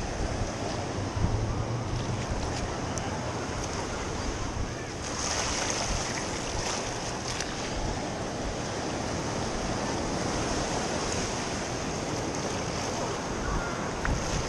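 Shallow surf washing in over the sand, with wind buffeting the microphone; the wash grows a little stronger about five seconds in.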